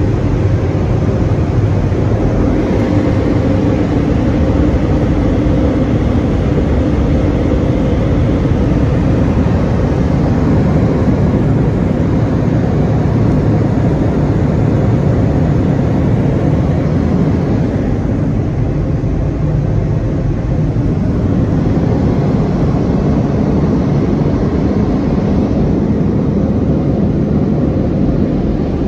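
Car wash dryer blowers running, a loud steady rush of air heard from inside the car.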